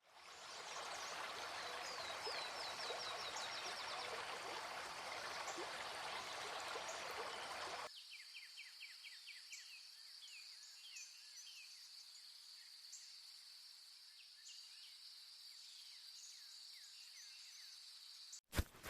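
Outdoor nature ambience: running water with quick repeated bird chirps, which cuts off abruptly about eight seconds in, leaving a quieter background with a steady high-pitched drone and scattered bird chirps.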